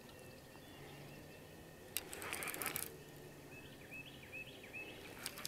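Faint outdoor quiet with small birds chirping a few short notes, and a brief clicking rustle about two seconds in.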